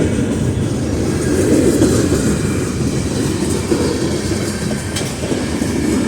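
Norfolk Southern freight train cars rolling past with a steady, heavy rumble of wheels on rail.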